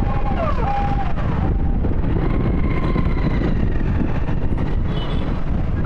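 Motorcycle ride heard from the rider's seat: wind buffeting the microphone over the running engine and road noise. A short pitched tone that bends downward sounds near the start.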